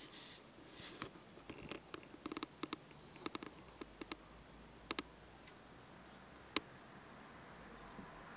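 Faint, scattered sharp clicks and light taps over a low hiss. They come thick and fast in the first few seconds, then only now and then.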